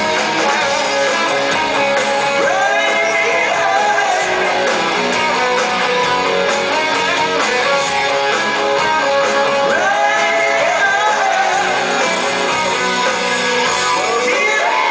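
Rock band playing live: electric guitars strumming over drums, with a singer's vocal lines, heard loud from the audience in a large hall.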